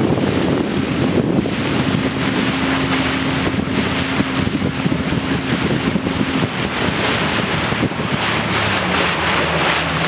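Motor of a small boat running steadily, with wind buffeting the microphone and water rushing and splashing along the hull. The motor's hum drops to a lower pitch about two-thirds of the way through.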